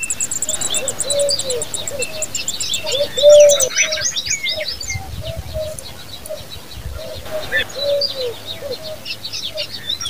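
Loten's sunbird nestlings begging with rapid, high chirps as the female feeds them, in two bouts: the first loudest about three seconds in, the second near the end. Underneath, a low cooing note repeats about twice a second.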